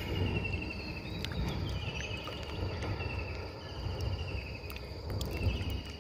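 Insects chirping in a string of short pulsed trills, about one a second, over a steady high insect buzz. Underneath are low water and handling noise and scattered small clicks and drips from the wet gill net being pulled into the boat.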